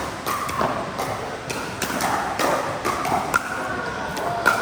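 Pickleball rally: paddles striking the hollow plastic ball and the ball bouncing on the court, about eight sharp knocks at irregular spacing.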